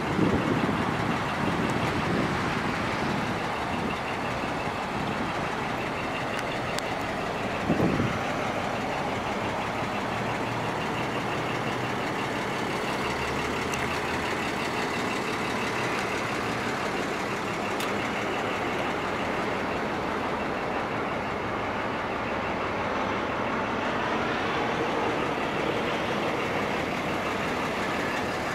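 A 1948 Chevrolet pickup's straight-six engine idling steadily, with a brief thump about eight seconds in.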